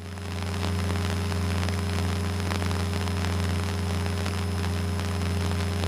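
Cessna 172N's four-cylinder Lycoming engine and propeller droning steadily in cruise-like flight, heard inside the cabin, with a steady hiss over the drone.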